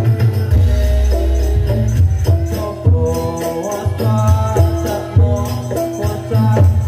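Javanese gamelan music for a jathilan hobby-horse dance: a deep drum and gong layer underneath, with metallophones playing short, stepping melodic notes and sharp percussion strikes on top.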